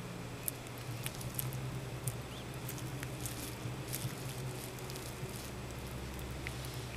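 Merauke blue-tongued skink chewing a salad of arugula, bok choy and mango: small, irregular crunching and clicking bites, over a steady low hum.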